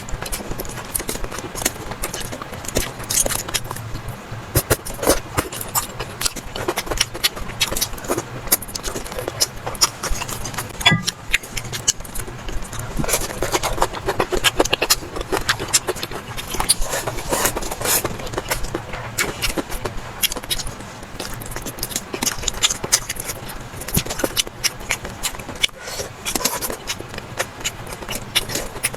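Close-miked eating sounds: chewing and mouth smacks, a dense irregular run of short clicks throughout.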